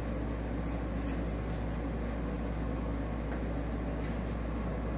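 Steady low background hum of a small room, with a few faint rustles as the fabric seat cover is handled and pressed down.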